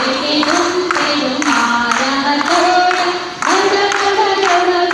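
A group of women singing a song together with hand claps keeping a steady beat, about two claps a second.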